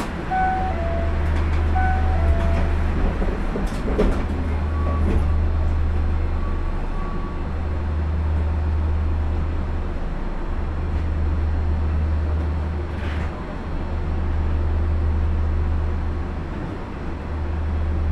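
Osaka Monorail train standing at a station, its equipment giving a steady low hum. A short two-note chime sounds twice in the first couple of seconds, and two knocks come about four and five seconds in.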